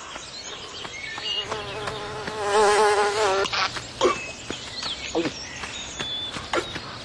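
A flying insect buzzing close by, its pitch wavering, loudest between about two and three and a half seconds in. A few short, sharp noises follow.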